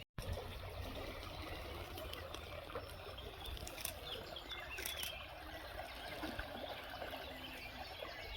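Outdoor ambience: small birds chirping repeatedly over a steady background hiss with a low rumble.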